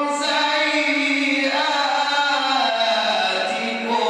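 A man reciting the Quran in a melodic chanting style. He holds one long drawn-out phrase that slides down in pitch, and a new, higher phrase begins near the end.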